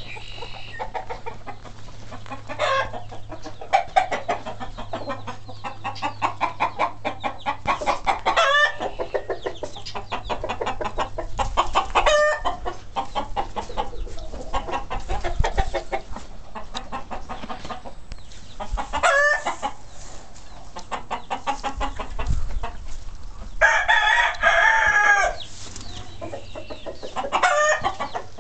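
Chickens clucking continuously while a rooster crows several times, the longest and loudest crow coming near the end.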